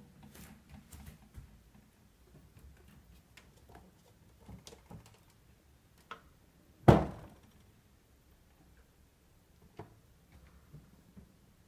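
Bosch fridge door swung wide open, giving one loud knock about seven seconds in, just before it reaches fully open: the door fault the owner is showing. Faint clicks and a few lighter knocks come before and after.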